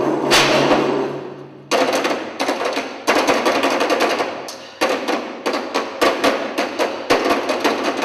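A loud crash-like hit that rings off, then after a short pause a long run of sharp, rapid, uneven knocks, several a second, like wood-block or hammer strikes.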